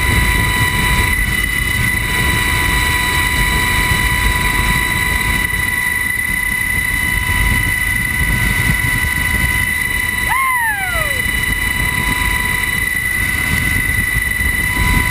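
Helicopter in flight heard from inside the cabin at the open door: steady engine, rotor and wind noise with a constant high whine on top. About two-thirds through, the sound dips briefly and a short falling tone sweeps down.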